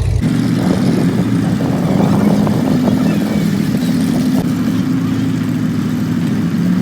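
Demolition derby car's engine running steadily at a fast idle, with a rough, uneven note.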